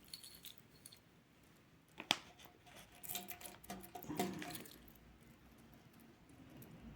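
Faint handling of a stainless steel watch bracelet: one sharp click about two seconds in, then a few soft clinks and rustles.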